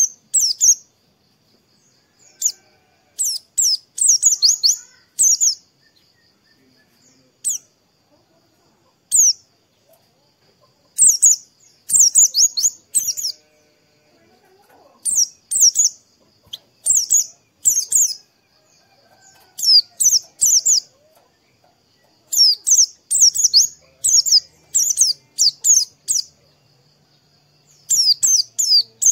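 White-eye (pleci) singing: clusters of quick, very high chirping notes, phrase after phrase with short pauses between.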